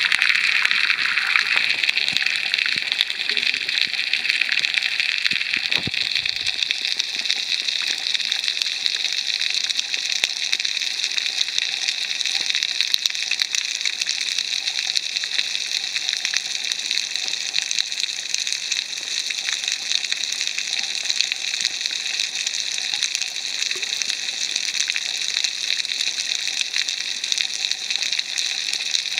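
Underwater crackle of snapping shrimp on a coral reef: a dense, steady fizz of countless tiny clicks. A brief low knock comes about six seconds in.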